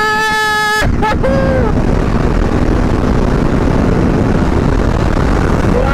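KTM RC sport motorcycle's single-cylinder engine running steadily at road speed, with wind rush, after a short loud held tone in the first second.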